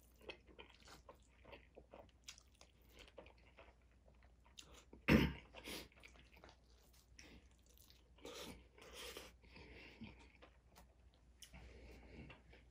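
Close-up chewing of a mouthful of orange chicken and rice, with many small wet clicks, and one louder knock about five seconds in.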